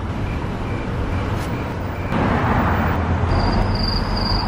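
A van's engine idling with a steady low hum; the general noise grows louder about two seconds in. Near the end a run of short, high electronic beeps comes about two a second.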